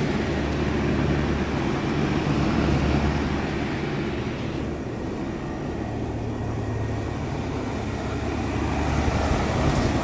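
Refrigeration condensing unit running steadily: the compressor's low hum under the condenser fan's even rush of air.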